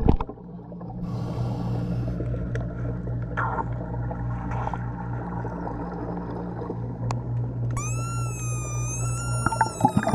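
Underwater sound beside a boat hull: a steady low hum. Near the end a wavering whistle rises and falls, with crackling clicks just before it ends.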